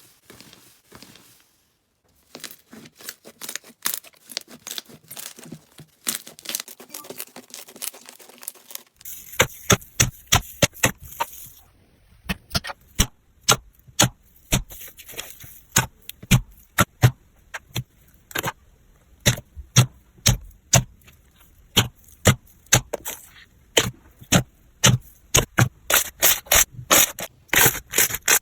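Slime being squeezed and poked by hand, giving irregular sharp crackles and pops. They are fainter and sparser at first and come much louder and thicker from about a third of the way in.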